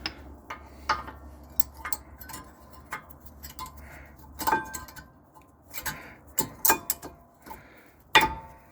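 New brake pads and their metal clips clinking and clicking as they are handled: a dozen or so irregular sharp taps, some with a short metallic ring, the loudest near the end.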